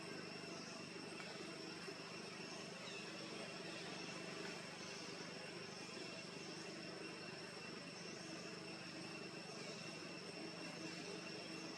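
Steady outdoor background noise with a constant high-pitched whine and a few faint chirps above it.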